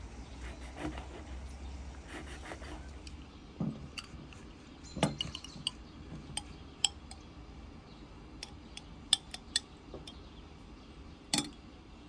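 Metal spoon clinking against a glass jar and a glass bowl while fruit preserve is spooned out: a string of short, sharp, irregular clinks beginning a few seconds in, the loudest near the end.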